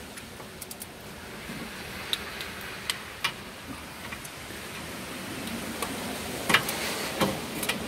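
Scattered sharp clicks of a torque wrench as the water pump bolts are tightened to a low 11 foot-pounds, over a steady background hiss. The loudest clicks come near the end.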